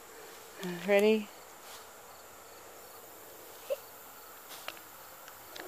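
Insects chirping faintly and steadily in the background, with a few soft clicks near the end.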